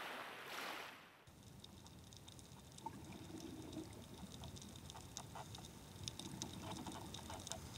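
Faint sea sound: a soft wash of water for the first second or so, then an abrupt change to underwater reef ambience, a low rumble with scattered sharp clicks and crackles.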